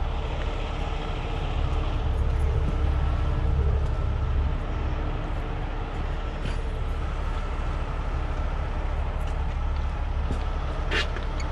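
Heavy rotator tow truck's diesel engine running with a steady low rumble, a little louder between about two and four and a half seconds in.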